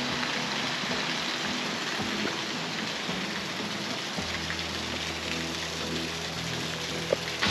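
Rushing, splashing water of a gorge stream and its small waterfalls, a steady even hiss, with faint background music underneath. A single sharp tap sounds near the end.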